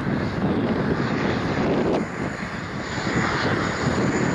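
Boeing 787-8 jet engines running, a steady rushing roar that dips briefly about halfway through, with a thin high whine over the last second or so.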